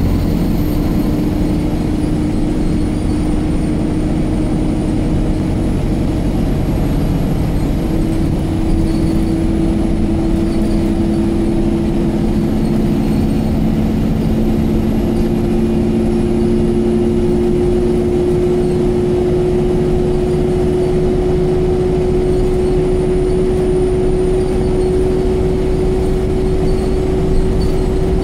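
Alexander Dennis Enviro 200 MMC single-deck bus heard from inside the passenger cabin while under way: a steady engine and drivetrain rumble with road noise. Over it runs a constant whine that climbs slightly in pitch as the bus gathers speed.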